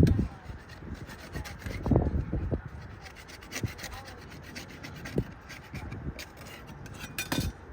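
Hand tool scraping and rubbing against the hatch frame in irregular strokes, with a few sharper knocks, as the old aft hatch is worked free of its sealant.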